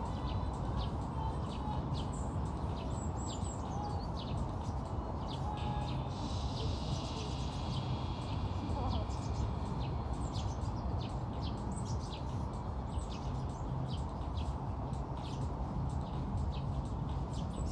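Small birds chirping, with many short high calls scattered throughout and a denser run of twittering about six to nine seconds in, over a steady low background noise.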